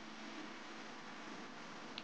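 Faint, steady background hiss, with a single short click near the end.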